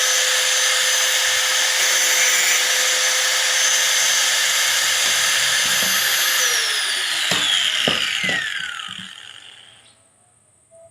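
Hand angle grinder running at full speed with a steady high whine and hiss, then switched off about six and a half seconds in, its pitch falling as the disc spins down over about three seconds. A few knocks sound as it winds down.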